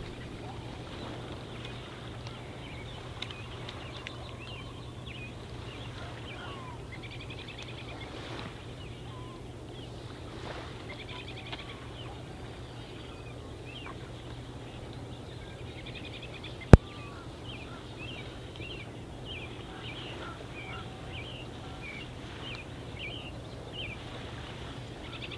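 Outdoor ambience with birds calling repeatedly in short chirps, more often in the second half, over a steady low hum. A single sharp click, the loudest sound, comes about two-thirds of the way through.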